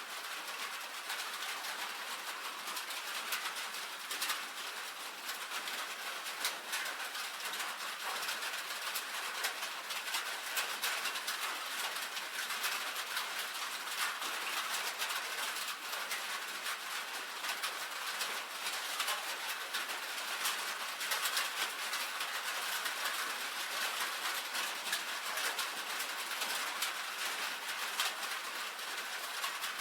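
Steady rain on a tin roof: a dense, even patter of countless drops tapping the metal.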